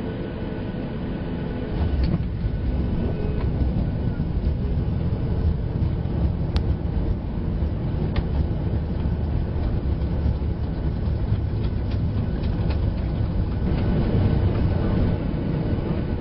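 Cabin noise of a Boeing 737 MAX 8 rolling along the ground after landing: a steady low rumble of the wheels and engines, growing louder about two seconds in, with a few light clicks and rattles.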